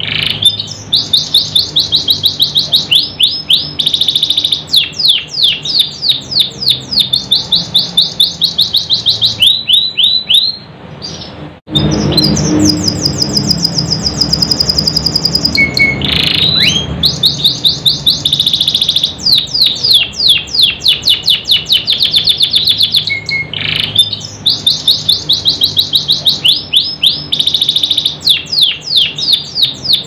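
Domestic canary singing a long, loud song of fast repeated high trills and rolls, with a brief break about a third of the way in followed by a held high note before the trills resume.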